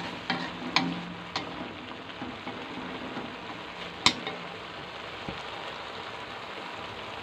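Pumpkin vine shoots and sliced beef sizzling steadily in a frying pan as they are stir-fried. Wooden chopsticks tap against the pan a few times in the first second and a half, and once sharply about four seconds in.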